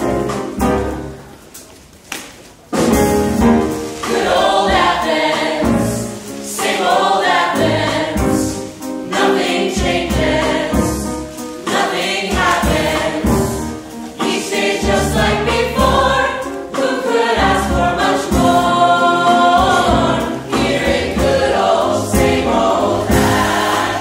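Mixed-voice chorus singing a musical-theatre number in full harmony, backed by a small pit band. The music drops away briefly about two seconds in, then the full chorus comes back in loud.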